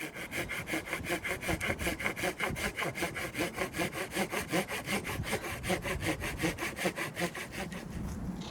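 Hand saw cutting through wood with fast, even back-and-forth strokes, stopping shortly before the end.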